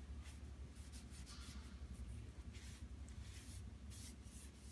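Folded tissue rubbing charcoal across drawing paper to blend the shading, a faint brushing in short repeated strokes over a low steady hum.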